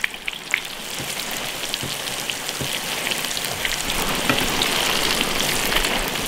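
Potatoes deep-frying in a wok of hot oil: a dense crackling sizzle that grows louder after the first second, with a few sharp clicks near the start.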